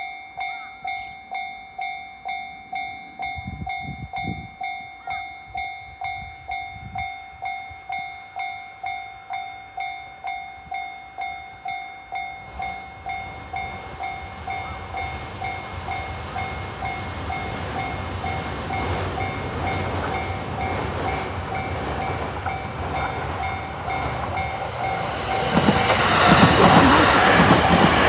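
Japanese level-crossing warning bell dinging steadily, a little faster than once a second. An E231-series electric commuter train comes up underneath with a rising rumble and passes loudly from about 25 seconds in, drowning the bell.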